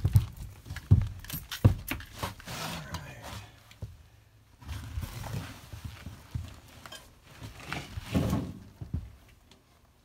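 Close handling noise as a worker moves right beside the microphone: a few sharp knocks and thumps in the first two seconds, then several spells of clothing and gear rustling, dying away about a second before the end.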